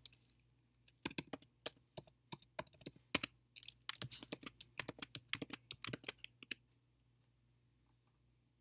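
Typing on a computer keyboard: quick, irregular keystrokes starting about a second in and stopping about five and a half seconds later, with one louder click midway.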